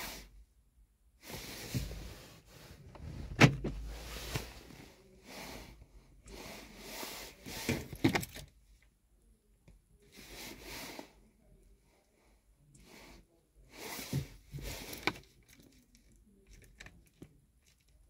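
Rustling and handling noises in several irregular bursts, with three or four sharp clicks among them, while the car door's unlock button is worked during remote-key programming.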